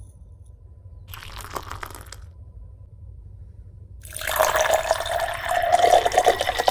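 Water poured from a small steel bowl into another small steel bowl, a thin stream splashing and filling it, starting about four seconds in, with a ringing tone from the metal bowl. A short rustle comes about a second in.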